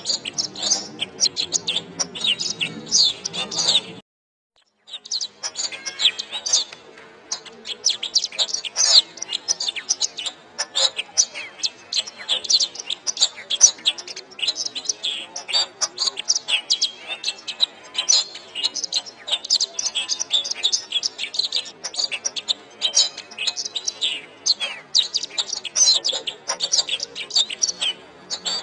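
Canary singing a long, fast warbling song of rapid chirps and trills. It cuts out completely for about a second around four seconds in, then carries on.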